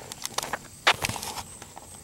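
Footsteps crunching on a rough, gravelly road: a few irregular scuffs and clicks, the sharpest about a second in, over a faint steady high chirring of crickets.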